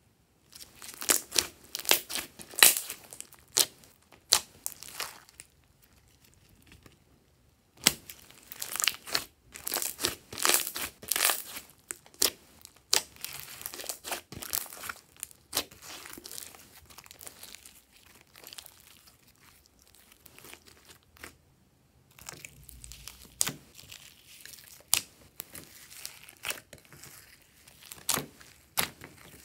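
Hands squishing, folding and stretching glossy slime, making rapid irregular sticky clicks and crackles, with a couple of short pauses. Near the end the slime being pressed has foam beads mixed in.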